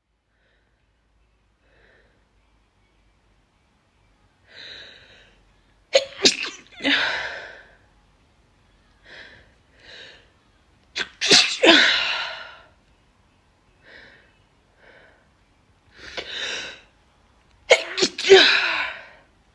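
A woman sneezing three times, the first about six seconds in and the others roughly six seconds apart, each a sharp burst that trails off. Short, fainter breaths come before and between the sneezes.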